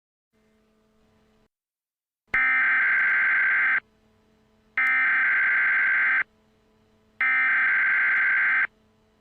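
Emergency Alert System SAME header: three bursts of rapid digital data tones, each about a second and a half long and a second apart, the coded header that opens an emergency alert message.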